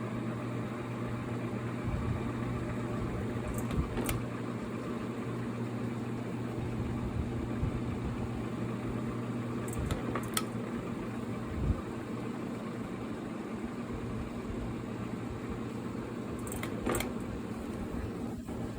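Small J.C. Penney ceiling fan motor running with no blades fitted, giving a steady low electrical hum. A few short clicks come now and then.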